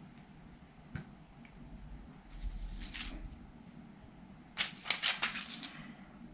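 Paper and plastic film from the screen protector kit being handled, rustling and crinkling in two short bursts, the second louder, with a light click about a second in.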